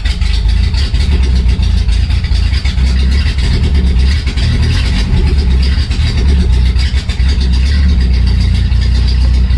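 MG MGB's 1.8-litre B-series four-cylinder engine running steadily with the choke pulled out to raise the idle.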